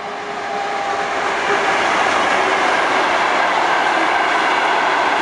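ChS4T electric locomotive and its passenger coaches passing close by, the noise of the wheels on the rails growing louder over the first second or so, then holding loud and steady as the coaches go past.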